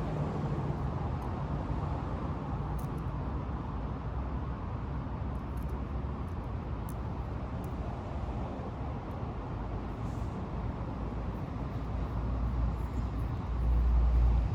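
Steady low background rumble with a few faint small clicks of tiny chassis parts and screws being handled; the rumble swells louder near the end.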